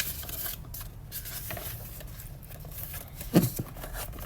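Paper rustling and sliding as a picture-book page is handled and turned, with a short voice sound about three seconds in.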